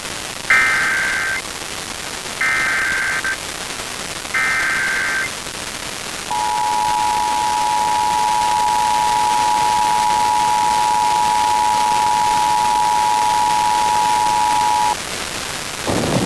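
Emergency Alert System test signal: three bursts of the buzzy SAME digital header, then the two-tone attention signal (853 and 960 Hz sounded together) held for about eight and a half seconds, marking the start of the alert. A steady static hiss runs underneath.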